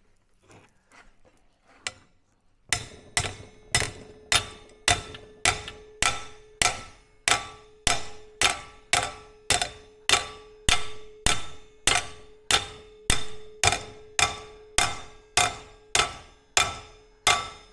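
Steady hammer blows on a blowtorch-heated thick steel bar clamped in a vise, bending it to an angle. The blows start about three seconds in and come a little under two a second, each leaving a ringing metallic note.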